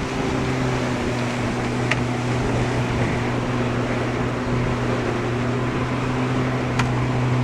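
Rental boat's engine running steadily under way, a constant low hum with a rushing noise over it. There are a couple of faint clicks, about two seconds in and near the end.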